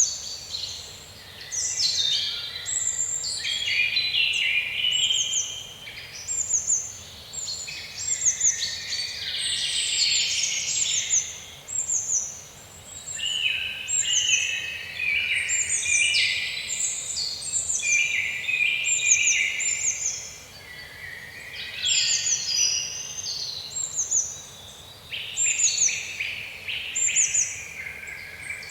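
Several songbirds singing and chirping at once: a run of short, high, down-slurred notes repeated about once a second over busier warbling phrases.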